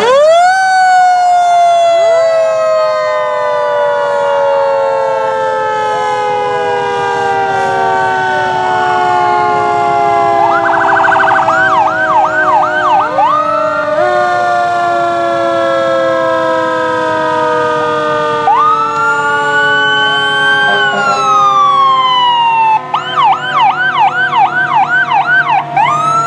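Several fire truck sirens sounding at once: a wailing siren jumps up in pitch and then falls slowly over many seconds, and is spun up again about halfway through. Over it, another siren gives bursts of fast yelp twice, and a rising and falling wail near the end.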